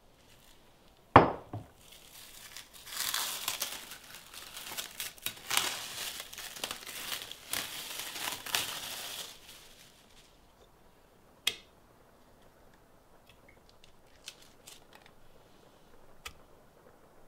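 A thump about a second in as a bowl is set down on a wooden chopping board, then several seconds of plastic cling film crinkling as it is peeled off the bowl. A single sharp click follows, then a few faint ticks.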